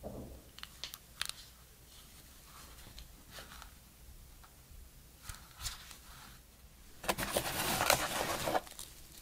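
Cloth-gloved hands handling a small plastic camera battery pack, giving scattered soft clicks and taps. About seven seconds in, a hand digs into the cardboard box, and a loud rustle of packaging lasts about a second and a half.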